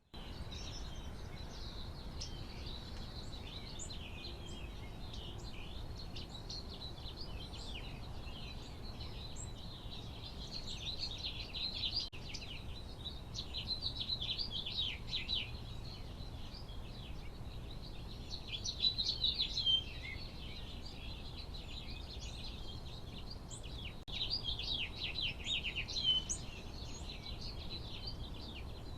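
Several birds chirping and calling over one another in a continuous chorus of short high notes, thicker in a few busy spells, over a steady low background rumble.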